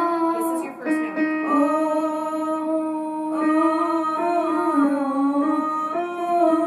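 A young girl singing into a microphone, holding long notes that step up and down in pitch every second or two without a break.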